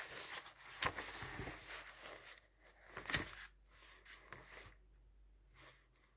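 Paper pages of a paperback book being leafed through, a dry rustling in the first two seconds with two short taps of handling, about one second and three seconds in.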